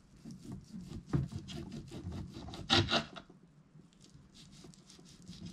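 Knife sawing back and forth through a tough steak, about four quick strokes a second, loudest about three seconds in, then fainter strokes.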